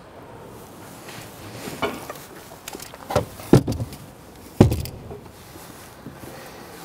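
Collapsed Hailo Profiline T400 aluminium telescopic ladder being loaded into a car boot: a scatter of knocks and thuds as it is set down, the loudest a little past halfway.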